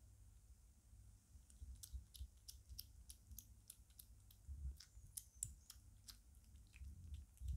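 A five-week-old British Shorthair kitten eating soft shredded meat from a plate: a faint, irregular run of small wet clicks and smacks from its mouth as it chews, starting about a second and a half in.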